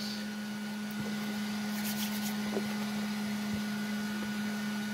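Steady hum of an electric dryer left running, with a few faint rustles and ticks from hands pressing fabric inside a sneaker's heel.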